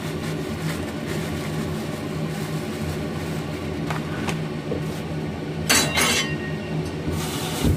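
Steady low hum of a kitchen appliance, with a few light clicks of things being handled and, near the end, two short rustling noises.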